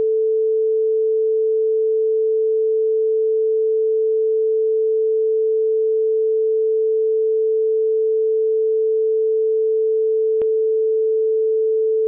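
Steady pure sine tone at 440 Hz (concert A), generated by a Pure Data osc~ oscillator with eight cloned voices all playing the same pitch. A faint click comes near the end.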